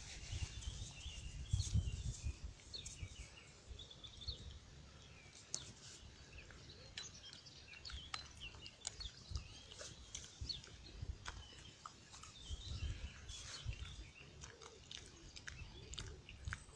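Small birds singing and chirping, with scattered sharp crunching clicks and short low rumbles near the start and again near the end.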